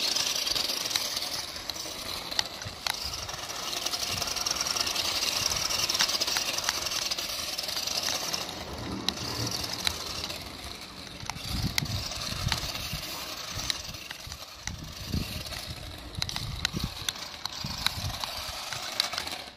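Small electric motor and gears of a toy-grade Nikko off-road RC truck whirring as it drives on a 7.4 V 2S LiPo, a steady high hiss with scattered sharp clicks. Low rumbles come and go in the second half.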